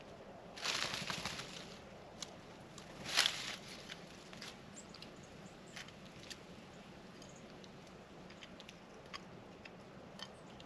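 Peanuts and shells clicking and crackling on a plate as animals pick at them to feed. There are two louder rustling bursts, about half a second in and about three seconds in, then scattered small clicks.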